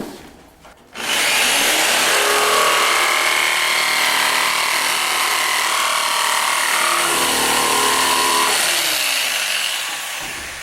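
Electric power saw cutting a window sill to length. It starts abruptly about a second in with a steady motor whine and a rushing hiss, and the whine drops in pitch as it winds down near the end.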